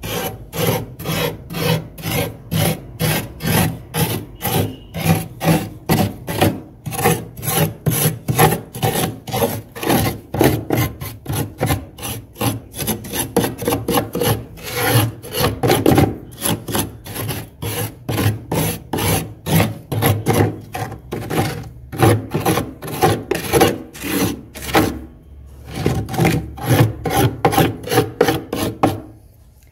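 Spoon scraping thick frost built up inside a freezer, rasping strokes repeated about two to three times a second with a few short pauses.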